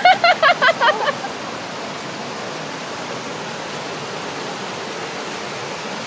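Rushing water of a shallow rocky mountain stream pouring over small cascades, a steady hiss. In about the first second a high voice lets out a quick run of short calls.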